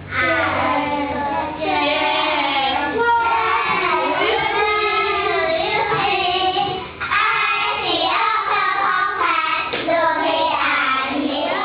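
Children singing a simple English chant-song, a line at a time, with a brief break about seven seconds in.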